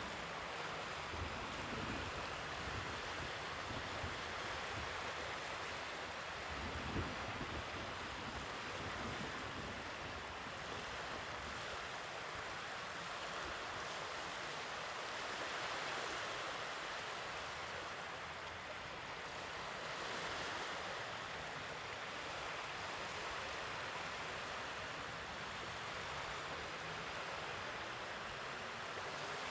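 Sea waves washing ashore, a steady rushing surf that swells gently every few seconds. Wind buffets the microphone with low rumbles during the first several seconds.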